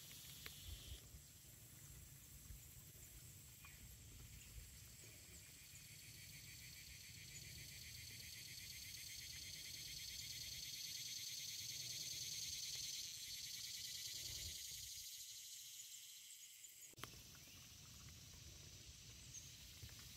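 A high-pitched chorus of buzzing insects, growing louder toward the middle and then fading, over a faint low rumble. One sharp knock near the end.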